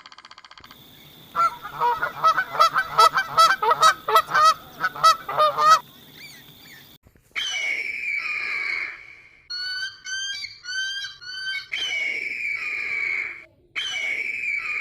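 Bird calls from a compilation: first a fast run of short repeated calls, several a second, for about four seconds; then, about seven seconds in, a different bird's longer, higher calls, each around a second long, with quick chirps between them.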